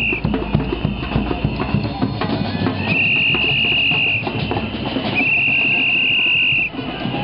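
Large hand-held drums beaten with mallets in an irregular street-parade rhythm. Over them come long high whistle blasts, two of over a second each, starting about three and five seconds in.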